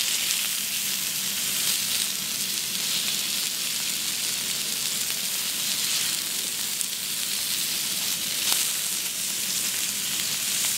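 Cubes of beef steak sizzling steadily on a hot teppanyaki iron griddle, with an occasional light tap, the clearest about eight and a half seconds in.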